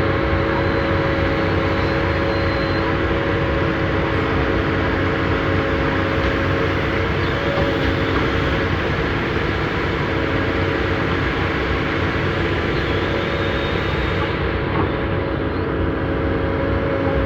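Heavy earthmoving machine's diesel engine running steadily, with a steady mechanical hum and no change in speed.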